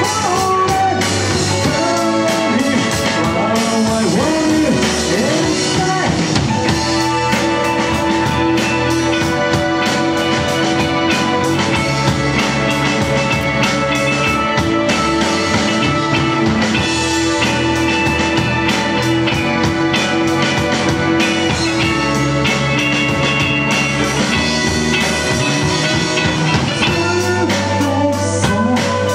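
Live rock band playing at full volume: electric guitars, bass guitar and drum kit, with the drums keeping a steady beat throughout.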